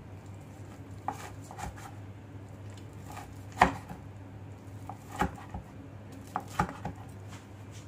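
Chef's knife cutting through a crispy breaded fried pork chop and knocking down on the cutting board: several sharp chops, the loudest about halfway through.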